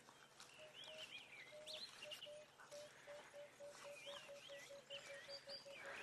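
Faint bush sounds: a low bird-like note repeated, slowly at first and then quickening into a fast run, with high chirps and squeaks scattered over it.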